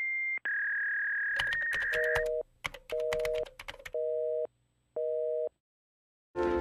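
Telephone tones: steady single tones, then a quick run of clicks like keys being pressed, then a busy signal beeping four times, about once a second.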